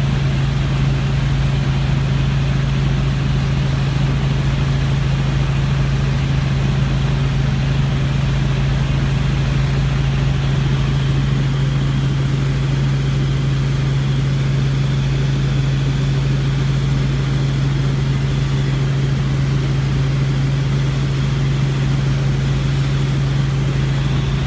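Tour helicopter's engine and rotors heard from inside the cabin: a steady drone with a strong low hum under a wide hiss, unchanging throughout.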